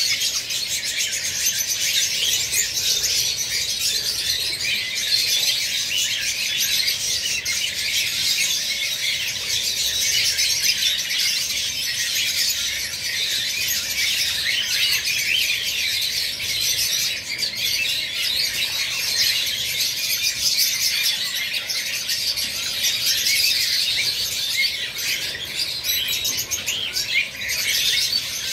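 A flock of lovebirds chattering without a break: a dense, overlapping mass of shrill, high chirps and squeaks.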